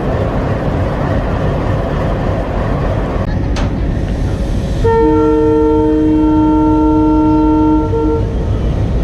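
Twin WDM-3A ALCO diesel locomotives rumbling steadily with their train. About five seconds in, a loud two-note locomotive horn sounds for about three seconds.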